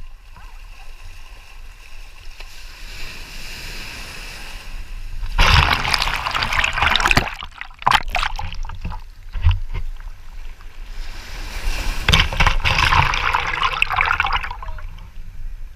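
Water sloshing and splashing around a kayak, with two louder rushes of splashing, about five seconds in and again about twelve seconds in. A constant low wind rumble on the microphone runs underneath.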